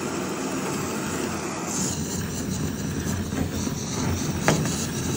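Gas torch head on a butane canister burning, its jet flame giving a steady hissing rush. A single sharp click about four and a half seconds in.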